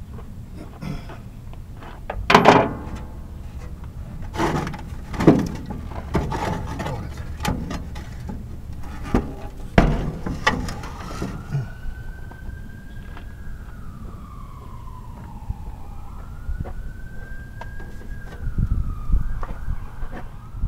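Metal clanks and knocks from hand tools on steel tractor-seat mounting parts, one of them ringing briefly, over a steady low hum. From about halfway through, a fainter siren wails, rising and falling slowly.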